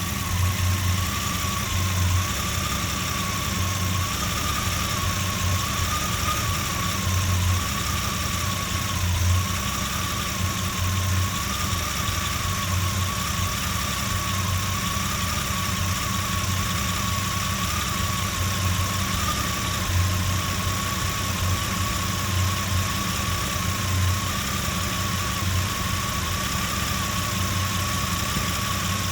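Jeep Comanche's 4.7-litre stroker inline-six idling roughly, with an uneven low pulsing and a steady, slightly wavering whine above it.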